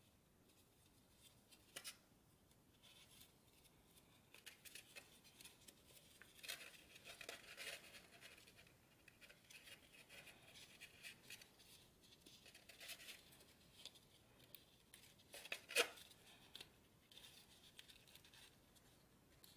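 Faint crinkling and rustling of origami paper being folded and creased by hand, made up of scattered crisp crackles. A sharper crackle comes about two seconds in, and the loudest one about sixteen seconds in.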